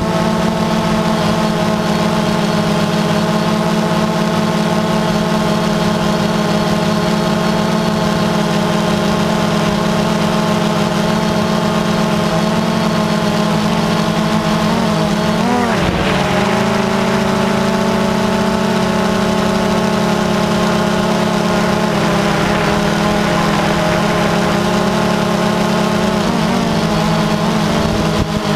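Multirotor drone's electric motors and propellers running in flight, a steady pitched hum heard up close from the drone's onboard camera. The pitch wavers briefly about halfway through and again near the end as the motors change speed.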